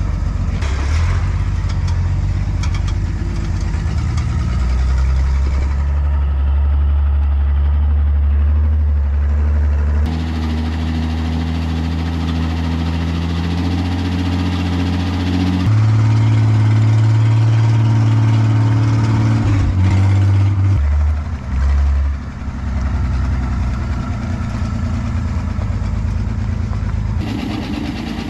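A 1953 Chevrolet 5700 cab-over truck's 235 inline-six engine running as the truck drives. It is heard partly from inside the cab. The engine note changes pitch abruptly several times and dips briefly about 21 seconds in.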